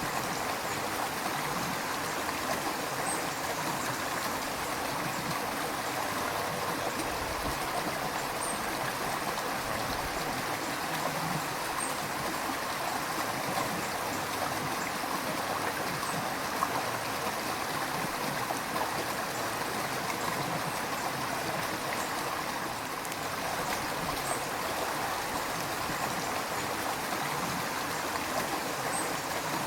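River water flowing and gurgling in a steady, even rush, with faint small splashes now and then.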